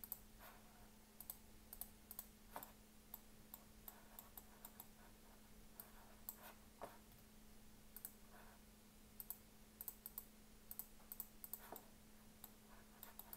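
Faint, irregular clicking of a computer mouse and keyboard keys, dozens of short clicks at an uneven pace, over a faint steady low hum.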